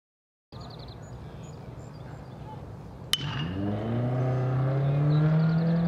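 A baseball bat striking the ball once, a sharp crack about three seconds in, over outdoor ballpark ambience. Right after it a steady droning hum starts, slowly rising in pitch and louder than the hit.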